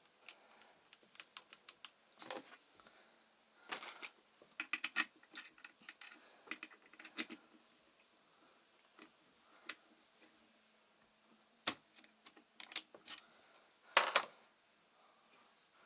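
Small metal parts clicking and clinking as they are handled, in scattered taps and short clatters, with one louder clink near the end that rings briefly.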